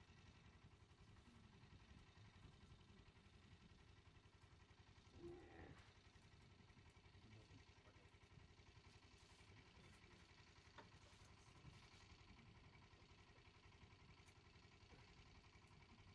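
Near silence: faint outdoor ambience with a low rumble, broken by a brief faint sound about five seconds in and a faint click near eleven seconds.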